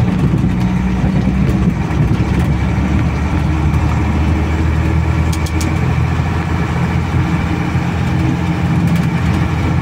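Truck engine running steadily as the truck climbs a muddy dirt hill, heard from inside the cab, with a few light clicks about five seconds in.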